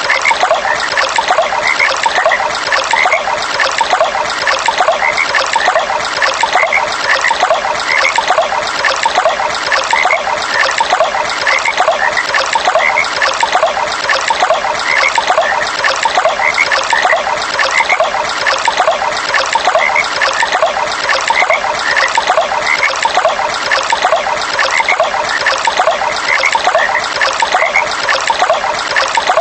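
Running water trickling steadily, with frogs calling over it in a continuous, evenly repeating chorus.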